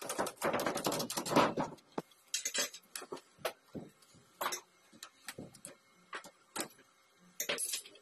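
Metal clicks and rattles from a steel door knob lockset being handled and fitted into a door. There is a dense clatter over the first two seconds, then scattered single clicks.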